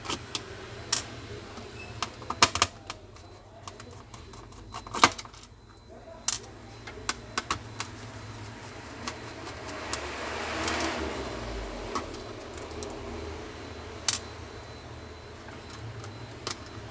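Scattered sharp clicks and light knocks from a laptop and small tools being handled during repair, with a stretch of hissy noise rising and fading about ten seconds in.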